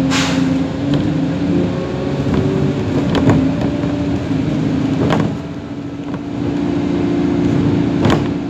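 Alexander Dennis Enviro 400 double-decker bus on the move, heard from inside the passenger saloon: a steady engine and transmission hum whose pitch shifts as it goes, dropping in loudness about five seconds in and then picking up again. Sharp knocks or rattles cut through it a few times.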